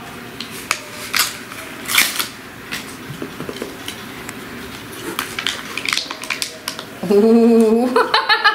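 Foil cat-treat packaging being torn open and handled: crinkling and sharp clicks scattered through, with a drawn-out voice sound near the end.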